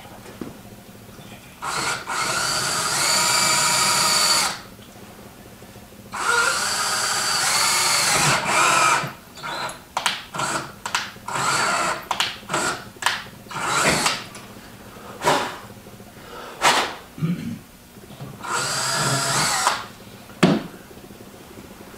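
Cordless drill boring into a metal gun part held in a vise, drilling holes for the screws that hold the trigger guard down. It runs in two long spells of a few seconds, then a string of short on-off bursts, then one more spell near the end.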